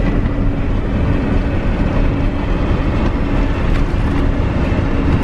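Steady road and engine noise inside a moving camper van: a low rumble with a constant hum.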